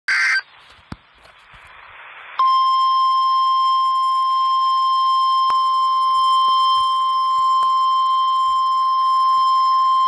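NOAA Weather Radio warning alarm tone, a steady 1050 Hz tone, starting about two and a half seconds in after a brief burst and faint static, and holding unbroken. It is the alert that announces a warning about to be broadcast, here a severe thunderstorm warning.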